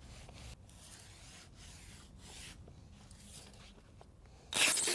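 Faint rustling and rubbing of underlayment and seam tape being handled, with a louder brief rip near the end as tape is pulled.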